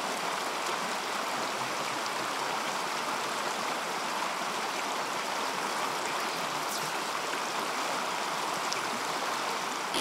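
Small rocky mountain stream flowing, a steady, even sound of running water.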